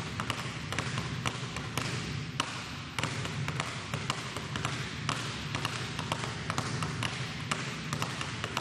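Two basketballs dribbled at once on a hardwood gym floor: a quick, uneven patter of bounces, several a second, one ball kept high and the other low.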